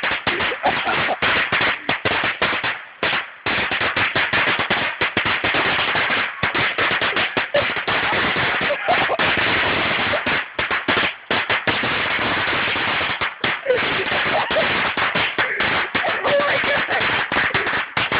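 An 800-shot string of firecrackers going off in a rapid, unbroken crackle of bangs, with a few brief lulls.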